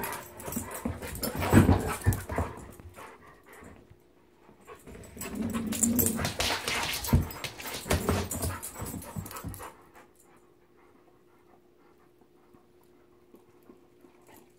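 Labrador retrievers play-fighting over a toy: panting, with scuffling and clattering bursts from paws and bodies, in two spells, then falling quiet about ten seconds in.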